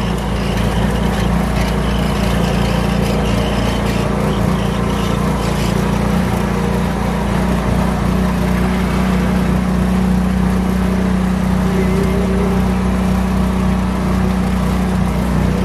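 Golf cart's swapped-in 6.5 hp single-cylinder small engine running steadily as the cart is driven.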